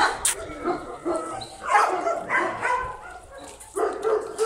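Dogs barking, several short barks one after another.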